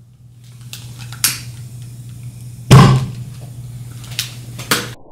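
Glassware and a rubber stopper with a glass tube being handled on a lab bench: a few knocks and clinks, the loudest a single thump about two-thirds of the way through, over a steady low hum.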